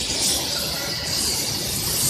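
Steady factory-floor machinery noise: a constant high hiss over a low rumble, with no distinct knocks or clanks.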